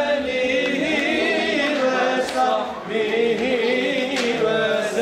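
Islamic devotional chanting: a melodic vocal line held in long, wavering notes.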